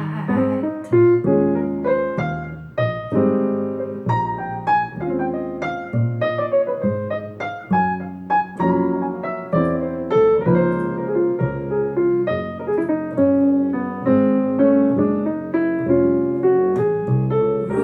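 Instrumental piano solo from a recorded song, many single notes and chords in a steady run, played back through vintage JBL Lancer L77 loudspeakers.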